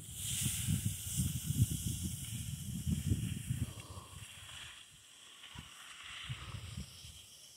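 Skis hissing and scraping over packed snow as the skier runs downhill, with wind rumbling on the microphone that fades about halfway through, leaving a quieter hiss.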